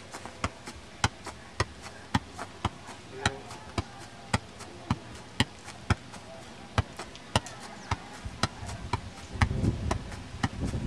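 A quick, irregular series of sharp knocks or hits, two or three a second, from a training drill, with a low rumble coming in near the end.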